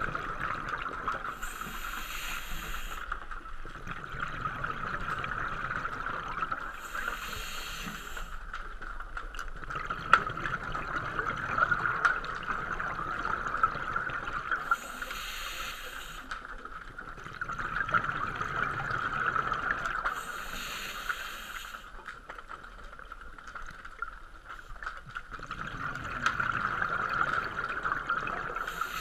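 Scuba diver breathing underwater through a regulator: a hissing, bubbling breath about every six to eight seconds, over a steady high hum.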